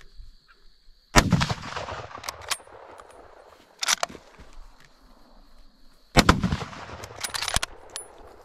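Two rifle shots about five seconds apart, each a sharp crack that rolls off in echo, with shorter clicks and knocks between them.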